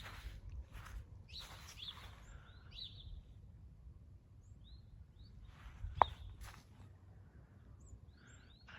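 Small birds giving short, high chirps here and there over a low rumble, with a sharp click about six seconds in.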